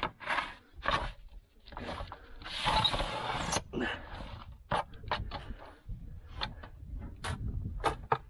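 A string of knocks and clanks, with a scrape of about a second starting about two and a half seconds in, as a loaf is pulled out of a stone bread oven.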